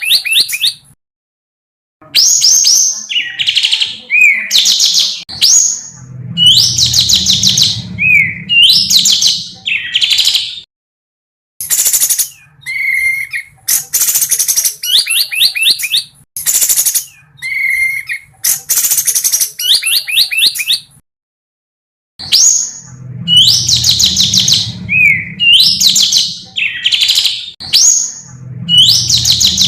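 An African songbird's song used as a training recording: fast, high trills and rapid rolling strings of sharp notes, in phrases a second or two long. The same passage of about ten seconds repeats, with a brief silence before each repeat.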